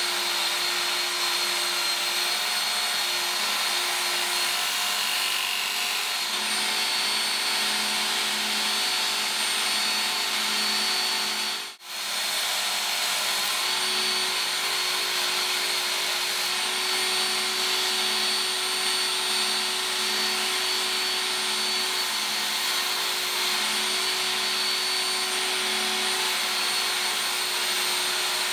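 Work Sharp Ken Onion belt sharpener running steadily, its abrasive belt grinding against a steel machete blade with a continuous whirring hiss. The sound drops out for a split second about twelve seconds in.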